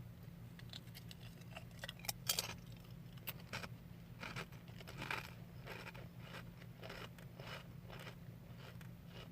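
Faint, irregular crunching and small crackles of someone chewing Munchos potato crisps, a few louder crunches among softer ones, over a steady low hum.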